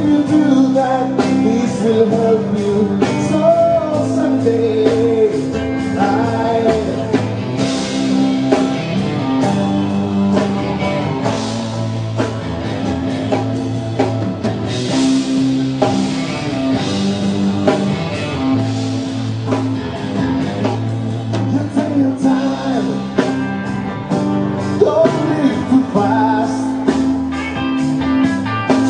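Rock band playing a song live, with a lead vocal sung over guitar and a steady beat.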